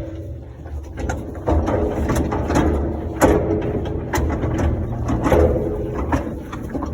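Old heating-oil tank being dragged on a two-wheeler hand truck: repeated clanks and bumps, each leaving a short ringing tone, with the loudest knocks about a second and a half, three seconds and five seconds in, over a low rumble.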